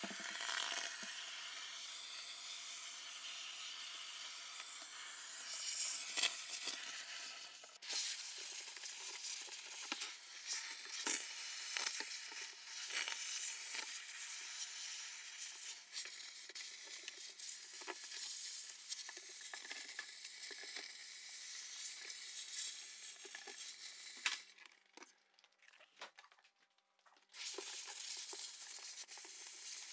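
Handheld steam cleaner jetting steam onto an iced-up refrigerator evaporator coil: a steady hiss, with frequent crackles and sizzles from about eight seconds in as the ice melts. The sound drops out for a couple of seconds a few seconds before the end, then resumes.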